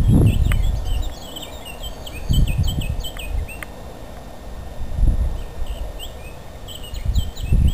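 Wind buffeting the microphone in four gusts, over small songbirds twittering with quick high chirps, plus a few light clicks.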